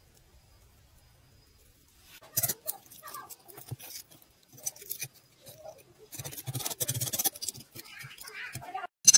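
Metal tweezers scraping through casting sand and clicking against freshly cast silver scissors as they are dug out of the mould, in irregular scrapes and taps. A loud burst of noise cuts in at the very end.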